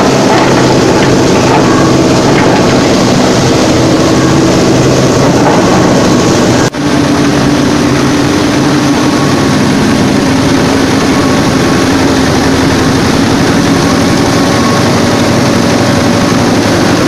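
Small single-cylinder diesel engine driving a grass chopper through a belt, the two running loud and steady while the chopper grinds dried corn cobs. The sound drops out for a moment about a third of the way through.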